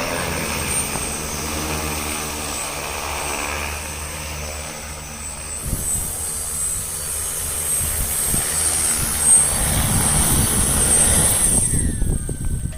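MD10-series agricultural spraying drone in flight, its propellers giving a steady whirring hum with a high whine, growing louder over the second half.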